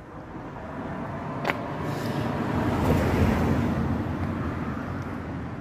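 A vehicle passing by on the street, swelling to its loudest about three seconds in and then fading away. A single sharp click about a second and a half in.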